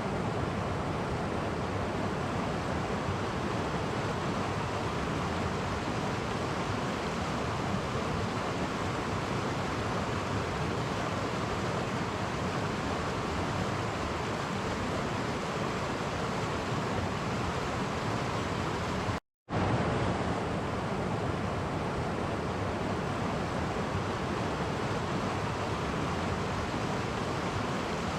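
Clear stream flowing over small cascades: a steady rush of water, cut once by a split-second gap of silence about two-thirds of the way through.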